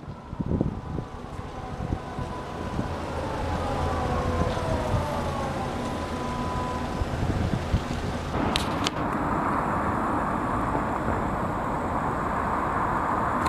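Hörmann F71 electromechanical civil-defence siren winding down after its test signal: two faint tones fall in pitch and fade over several seconds against a low traffic rumble. About eight seconds in there is a click, and a steady rushing noise takes over.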